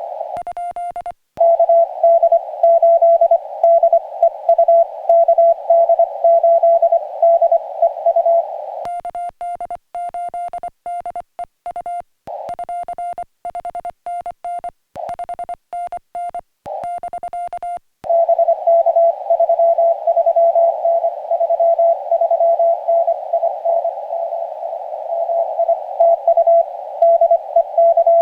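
Morse code (CW) on a portable ham radio transceiver: a single beeping tone keyed on and off in dits and dahs, heard in the receiver's narrow band of hiss. From about 9 to 18 s the hiss drops away and a cleaner, quieter keyed tone is sent, the radio's sidetone while the operator transmits with the paddle. The hiss and the received tone then return.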